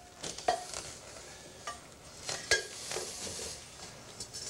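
Snake-catching pole knocking, clinking and scraping against a ceramic pot as it is pushed aside, several light knocks with the loudest about halfway, over a steady faint hiss.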